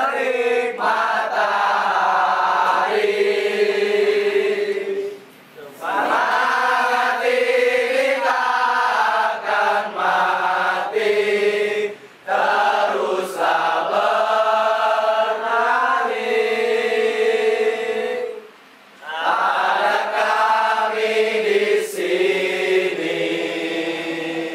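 A group of football supporters singing a terrace chant together in unison, in long sung phrases broken by three short pauses.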